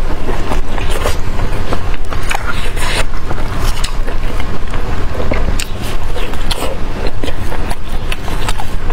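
Close-miked eating sounds: a person chewing saucy meat, with many short wet smacks and crackles, over a steady low rumble.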